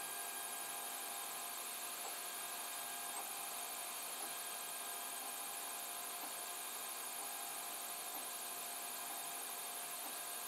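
An FDM 3D printer running mid-print: a steady whir from its cooling fans, with a few faint steady tones from the machine.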